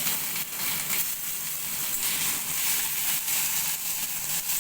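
Onion paste sizzling steadily in hot mustard oil in a kadai, with scattered crackles and pops.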